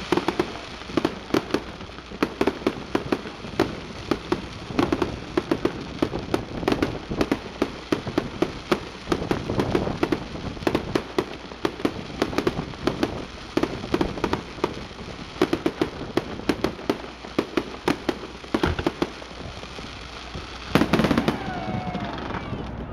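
Fireworks display: a rapid, continuous crackling and popping of bursting firework stars, many sharp reports a second, with a louder flurry near the end.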